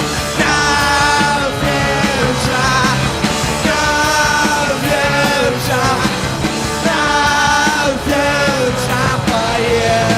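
Live punk rock band playing loud, with a lead vocal line sung in short phrases over electric guitar, bass and drums.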